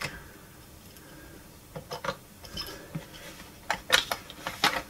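Scattered light clicks and clinks of small hard plastic and metal parts being handled on a turntable's arm-lift mechanism: one or two about two seconds in, then a quick cluster of several near the end.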